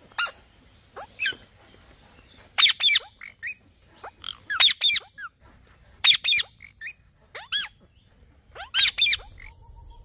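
Indian ringneck parakeet giving short, high-pitched calls, some single and some in quick runs of two to four, with short pauses between.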